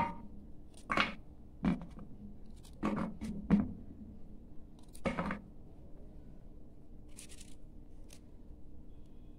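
Kitchen knife cutting through a raw carrot held in the hand: about half a dozen short, crisp crunches over the first five seconds, then a couple of fainter ones near the end, with the cut pieces dropping onto a steel plate.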